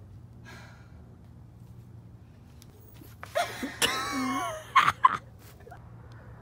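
A girl's strained vocalising as she hauls herself up a knotted rope: a drawn-out effortful cry about three seconds in, then two or three short, sharp bursts of voice.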